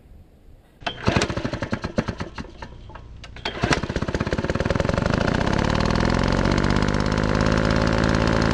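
An engine sputters with irregular pops, then catches about three and a half seconds in and runs up to a steady, loud running note.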